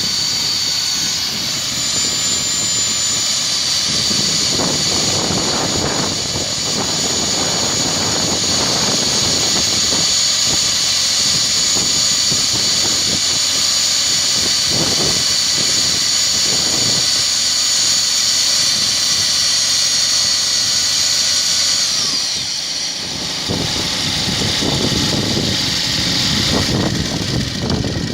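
Electric core drill motor running with a steady high whine and an uneven rough noise underneath. About twenty-two seconds in the whine falls in pitch as the motor winds down.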